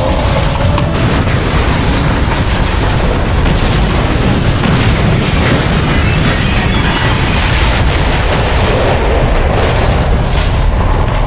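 Dubbed-in crash and explosion sound effects, a dense, continuous run of booms and impacts, laid over background music for a toy train smashing through a tower of wooden blocks.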